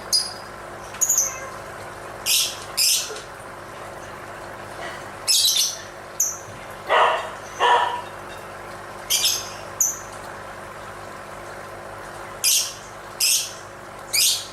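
Lovebird calling: a dozen or so short, shrill chirps spaced a second or so apart, with two lower, harsher calls about seven seconds in.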